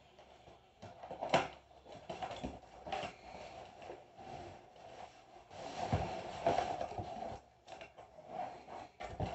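Scissors cutting packing tape on a cardboard shipping box, then the cardboard flaps being torn and pulled open, with irregular scraping, crinkling and ripping of cardboard and tape. The loudest moment comes about a second and a half in.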